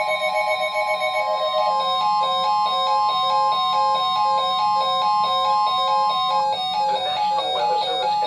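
Overlapping electronic emergency alert tones. A steady high attention tone cuts off about six and a half seconds in. Under it, a fast warbling alarm changes after about a second and a half into a quickly repeating pattern of stepped beeps.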